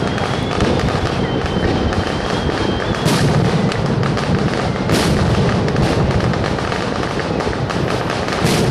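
Aerial fireworks display: a dense continuous crackle of small bangs with heavier shell bursts about three and five seconds in, deep enough to sound like war explosions. A thin high whistle runs over the first three seconds.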